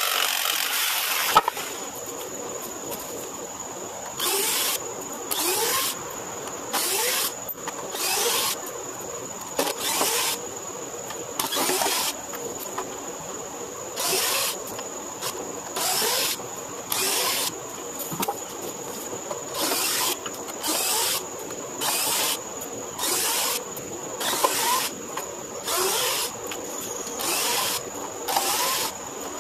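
A power tool runs continuously and cuts off about a second and a half in. After that a drill/driver spins in short bursts of about half a second, over and over, every second or two, backing screws out of wooden deck boards.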